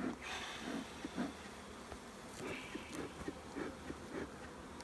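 Honey bees buzzing around an opened hive, single bees droning briefly past close by one after another, with a few light clicks.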